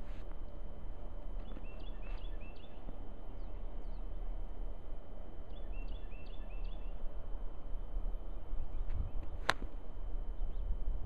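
A golf wedge strikes a golf ball off snow: one sharp click about nine and a half seconds in. Earlier, two short runs of high chirps.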